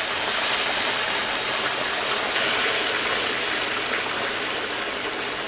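Hot water pouring in a steady stream into a pan of fried moong dal and spices, splashing and frothing as it fills the pan. It eases off a little toward the end.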